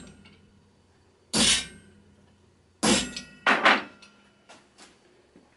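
Hammer striking a blunt-tipped repoussé tool to crease a sheet-steel plate held in a vise. There are four sharp metallic blows with a brief ring, the first two about a second and a half apart and the last two in quick succession, followed by two lighter taps.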